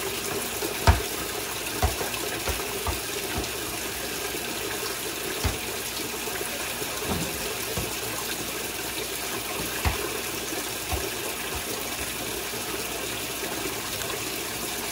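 Whirlpool direct-drive top-load washing machine filling for the rinse: a steady stream of cold water pouring into the tub from the fill inlet. A few short, light knocks sound over it.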